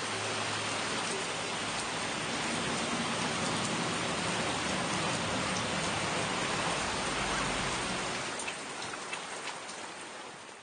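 Steady rain falling, with scattered faint drip ticks; it eases off over the last couple of seconds.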